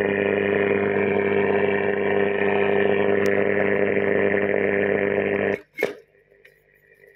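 Grundig Satellit 2000 shortwave receiver's speaker giving out loud, steady static with a strong hum, and no station coming through. It cuts off suddenly with a click about five and a half seconds in, as the band is switched from 19 m to 16 m.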